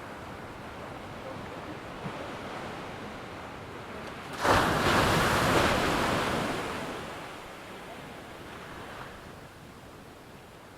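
Ocean surf: a steady wash of water, with a wave breaking suddenly about halfway through and fading away over a couple of seconds.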